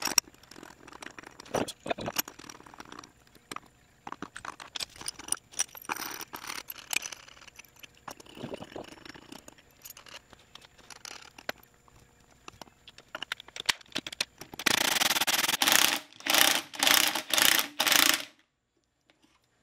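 Metal clinks and taps as a bearing separator and puller are fitted onto a Toyota E153 transaxle to pull a shaft bearing. About three-quarters of the way in, loud tool noise runs for about a second, then comes in four shorter bursts about half a second apart, as the puller is worked.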